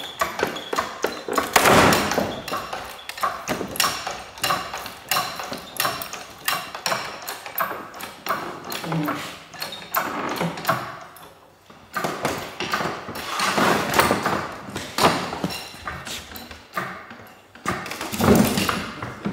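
Repeated metallic clanks, knocks and thuds as a bus diesel engine block is turned upright on wooden pallets with a hydraulic engine crane, with a louder thud about two seconds in.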